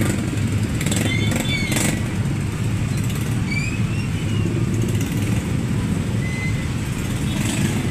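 Motorcycle engine running steadily while riding, with road noise, and a few short high chirps over it.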